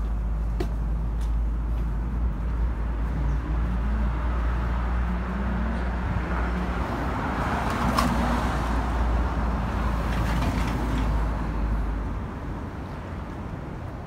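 Road traffic on a bridge roadway: a car passes close by, its noise swelling to its loudest about eight seconds in, over a steady low rumble that drops away near the end.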